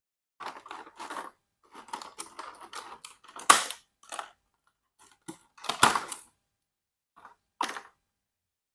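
Toy packaging being handled and opened: irregular rustling and crinkling with sharp clicks, the loudest about three and a half seconds in and another near six seconds.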